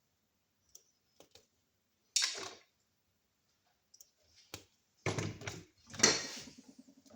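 Handling noises from work on a wall outlet: scattered light clicks, a short clatter about two seconds in, and two louder clattering knocks about five and six seconds in. A faint low hum follows the last knock.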